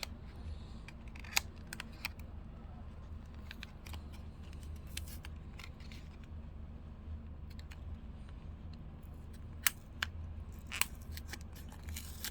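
A blind-box enamel pin package being opened by hand: scattered small clicks, snips and rustles of cardboard and packaging over a steady low hum.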